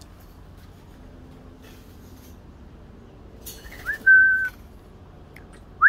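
A short upward whistle, then a clear whistled note held steady for about half a second, about four seconds in; just before the end a quick run of short rising whistles begins.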